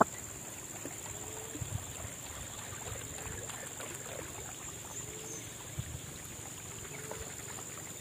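Gentle water sloshing and small splashes around anglers wading waist-deep in a swamp lake, with a steady high-pitched drone over it. A single sharp click comes right at the start.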